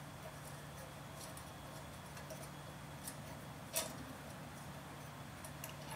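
Faint, sparse clicks and ticks of small metal parts being handled as drilled brackets and washers are turned onto a rod by hand, with one sharper clink a little under four seconds in.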